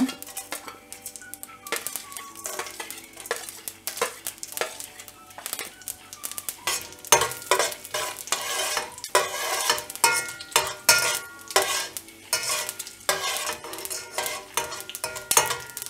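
Mustard seeds, urad dal and a dried red chilli sizzling in hot oil in a kadai, with many small irregular crackles, while a steel spoon stirs and scrapes against the pan.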